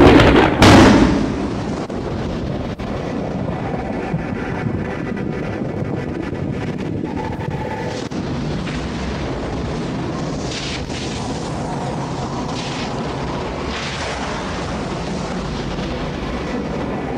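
Two loud booms in the first second, then a steady loud roar of arena noise.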